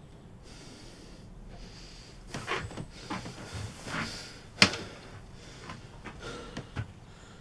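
A run of irregular knocks and clicks, with one sharp click a little past the middle the loudest.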